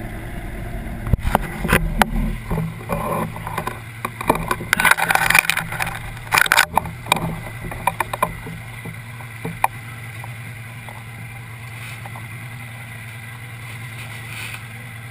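Boat engine idling with a steady low hum. Close knocks, clicks and rustling bursts from handling at the camera crowd the first seven seconds or so, then only the hum remains.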